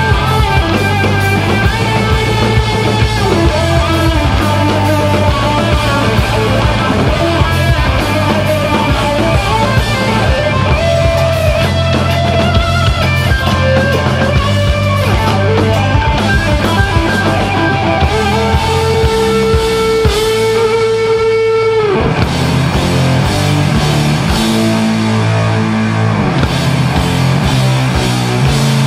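Live heavy metal band playing loud distorted electric guitars over a drum kit, with no singing. About two-thirds of the way in, a guitar note is held for a few seconds and then cuts off suddenly, and a lower, choppier riff follows.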